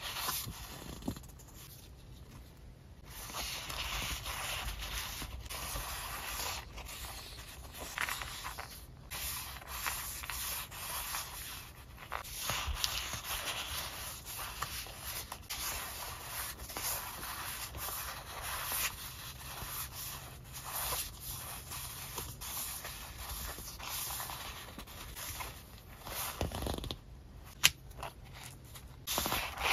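Paper sticker sheets rustling and sliding against each other as they are fanned out and shuffled by hand, with one sharp tick near the end.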